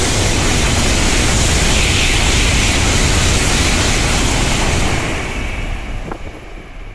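N700-series shinkansen passing through the station on the through track without stopping: a loud, steady rush of air and wheel noise over a low rumble, fading away over the last two seconds as the train pulls off.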